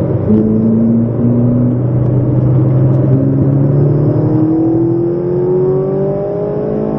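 Ferrari 458 Italia's 4.5-litre V8 heard from inside the cabin under way on track. The engine note holds fairly steady, then from about three seconds in climbs smoothly in pitch as the car accelerates, over tyre and road noise.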